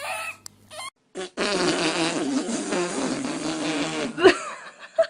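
A long, wavering fart lasting about three seconds that stops abruptly, then a baby's short startled whimper near the end. The tail of a baby's crying comes just before it.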